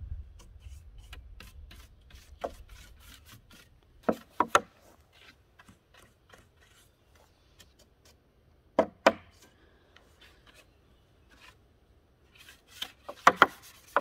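Stiff-bristled hand brush sweeping a weathered wooden garden table, a run of short scratchy strokes across the boards with a few louder knocks in between.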